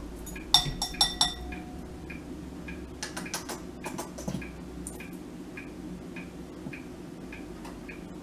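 A metal measuring spoon clinking a few times with a short ring, then small clicks and taps from handling the spoon and a plastic squeeze bottle of Dijon mustard. Under it, a faint regular ticking, about two ticks a second.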